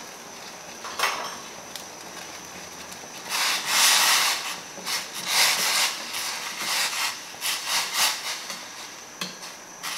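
A spoon stirring and scraping instant ramen noodles around a stainless steel pot of hot water, in a run of irregular strokes that starts about three seconds in.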